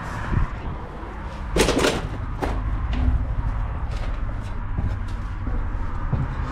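Metallic bangs and knocks of climbing into a hollow, rusted steel billboard column, with hands and feet striking the metal shell and its rebar ladder rungs. Two loud bangs close together about one and a half seconds in, then a third and lighter knocks, over a low rumble.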